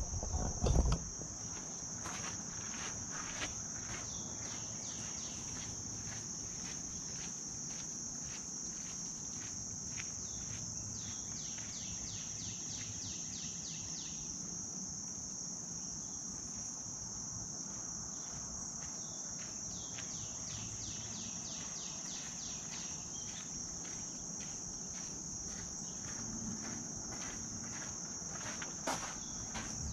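Outdoor insect chorus: a steady high trill throughout, with stretches of faster pulsing calls about ten and twenty seconds in. A few light knocks near the end.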